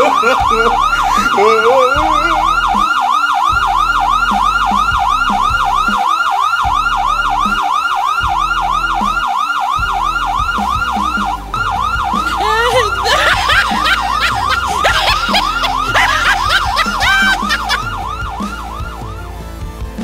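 Fake police siren in a fast yelp, its pitch sweeping up and down about three times a second. It fades out near the end. For a few seconds in the middle, other noise is layered over it.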